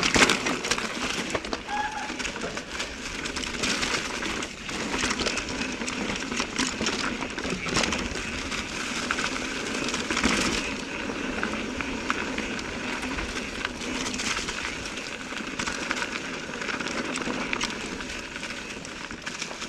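Mountain bike riding a rocky trail: tyres rolling and crunching over rock and grit, with the chain and frame rattling in many small knocks.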